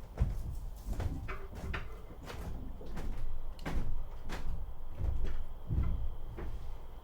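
Irregular knocks and clicks, with several low thumps.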